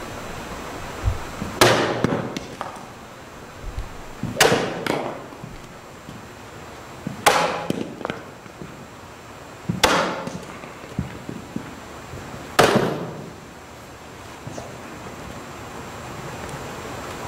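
A sword cutting through a target tube on a post stand five times, about every three seconds. Each cut is a sharp crack followed by a few light knocks as the severed piece falls.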